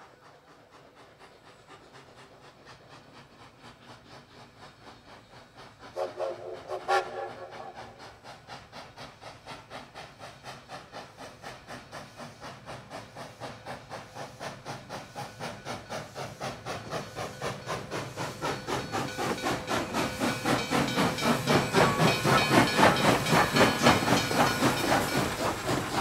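Steam-train chugging: a fast, even hissing beat that starts faint and grows steadily louder. A steam whistle sounds briefly about six seconds in.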